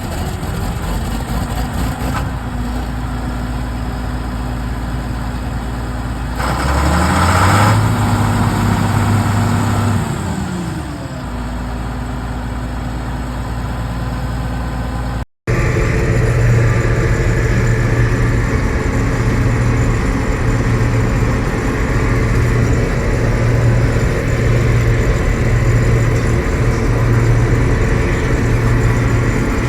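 John Deere 8820 combine's diesel engine running under harvest load; its note rises about seven seconds in and drops back a few seconds later. After a brief cut-out midway it runs on steadily at a higher, louder pitch.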